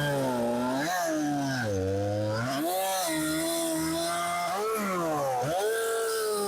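Chainsaw cutting wood under load. Its pitch sags several times as the chain bogs in the cut and climbs back as it frees up.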